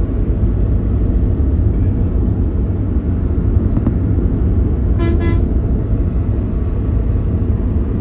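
Steady low road or engine rumble, with a short vehicle horn toot about five seconds in, sounded as two quick beeps.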